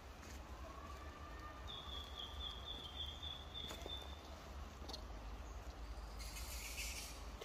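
Faint forest ambience with a low steady rumble. A thin, high, steady call, from a bird or insect, holds for about two seconds near the middle, and a short rustle comes near the end.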